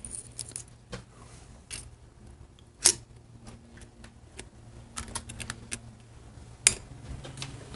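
Light metallic clicks and ticks of a steel feeler gauge set being fanned open and a blade worked into a Harley-Davidson Evolution engine's cam chest to measure camshaft end play. Two sharper clicks come about three seconds in and near the end, over a faint steady low hum.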